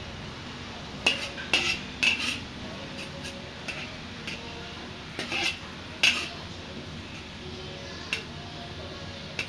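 Metal spatula scraping and clinking against a wok while stirring a small pile of sautéed onion, garlic and chili in dark soy sauce. The strokes come irregularly, a cluster of them about one to two and a half seconds in, and a sharp one about six seconds in.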